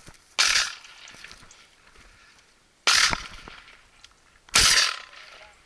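Three shotgun shots, each a sharp bang with a short ring-out: the first about half a second in, the second near three seconds and the third a second and a half later.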